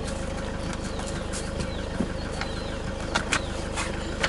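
A vehicle engine idling steadily. Birds chirp short falling calls over it, and a few sharp clicks and knocks come from gear being handled in the van, the loudest a little after three seconds in.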